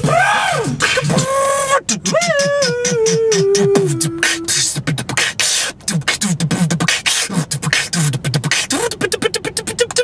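Beatboxing: rapid mouth-percussion clicks and hisses mixed with vocal swoops, including a long sung tone that falls in steps about two to four and a half seconds in. The clicks turn faster and denser in the second half.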